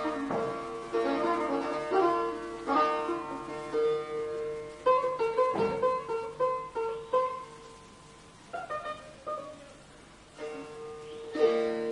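Solo setar, plucked notes ringing over a sustained drone string. Past the middle it thins to a few quiet single notes, then a loud struck chord rings out near the end.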